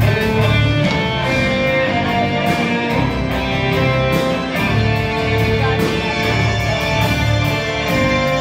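Music with guitar over a steady low pulsing beat.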